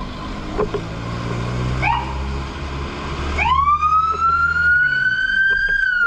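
Fire truck siren heard from inside the cab: a short upward chirp about two seconds in, then a long wail that sweeps up sharply and keeps climbing slowly, over the truck's steady engine hum.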